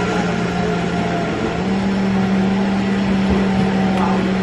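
Steady low hum over a constant rush of background noise, the hum dipping slightly in pitch near the start and rising back a little over a second in.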